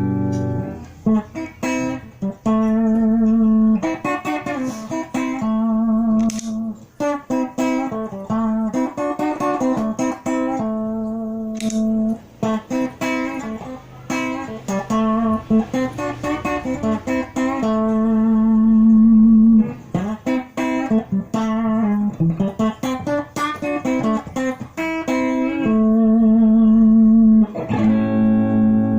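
Fender electric guitar played through a chorus pedal and a compressor pedal into an amp: picked single-note phrases with some long held notes, the notes wavering with the chorus shimmer.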